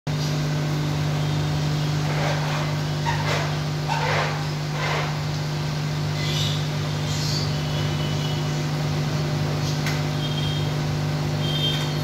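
A steady low mechanical hum.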